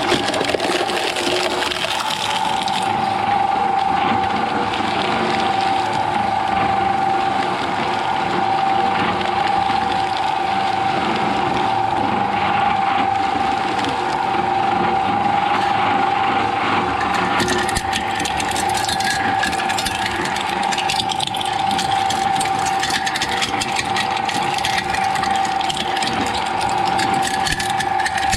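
Shredder machine running with a steady high whine over grinding noise as material goes through the cutters; from about two-thirds of the way in, dense crackling joins it.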